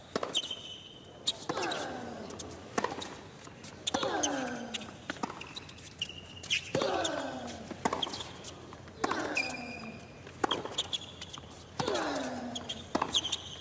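A hard-court tennis rally: rackets strike the ball about every 1.2 s, and about every other strike one player lets out a long grunt that falls in pitch. Tennis shoes squeak on the court between shots.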